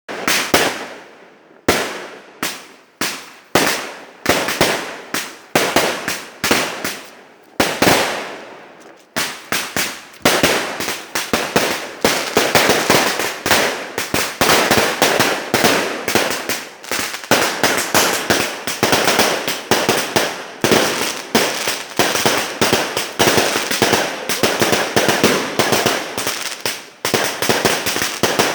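Fireworks going off in a long series of sharp bangs, each with a trailing echo. The bangs come one at a time at first, then thick and fast from about nine seconds in.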